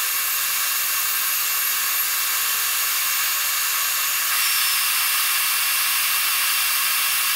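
Dremel 4000 high-speed rotary tool grinding a metal bracket, first with a cutting wheel and then with a sanding drum: a steady, high-pitched hiss with a thin motor whine. The sound shifts slightly about four seconds in.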